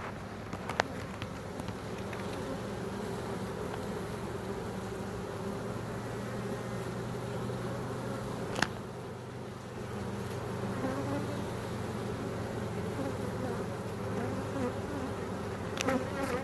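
A swarm of honey bees buzzing in a steady, dense hum as it settles into a nuc box. There are a few sharp clicks: one about a second in, one near the middle and a cluster near the end.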